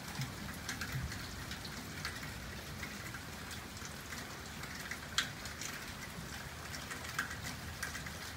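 Steady rain falling during a thunderstorm, with individual drops ticking sharply on a surface here and there; the loudest drop lands a little past five seconds in.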